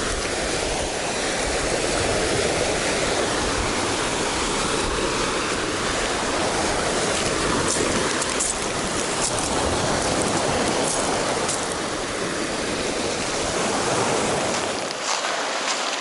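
Sea of Azov surf breaking and washing up a shell beach, a steady rush of waves. A few sharp crunches in the second half, like steps on the shells.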